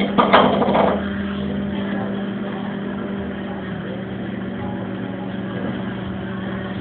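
Microwave oven running with a steady low hum and whir. A brief louder sound comes shortly after the start.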